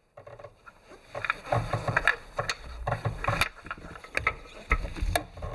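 Metal hand tools clinking and knocking irregularly as a spark plug socket and its extensions are handled and changed, with low rustling between the clicks.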